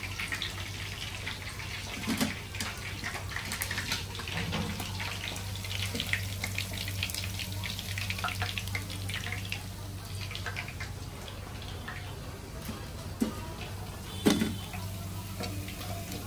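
Fish pieces deep-frying in a wok of hot oil, the oil sizzling and crackling with many small pops. A few sharper clinks of a wire mesh skimmer against the pan stand out, about two seconds in and twice near the end, as the pieces are lifted out.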